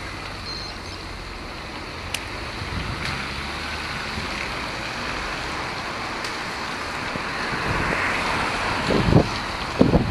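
Wind rushing over the microphone of a moving camera, over steady traffic and tyre noise on wet tarmac. It grows a little louder toward the end, with a few heavy wind buffets in the last second.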